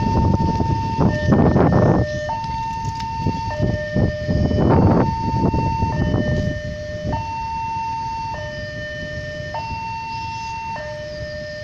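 Railway level-crossing warning alarm sounding its two-tone signal, alternating a higher and a lower tone about once a second to warn that a train is approaching. Two loud rumbling swells of noise come over it, about a second in and again near five seconds.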